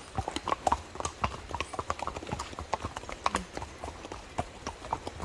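Horse hooves clip-clopping on the trail, a quick, uneven run of sharp clicks.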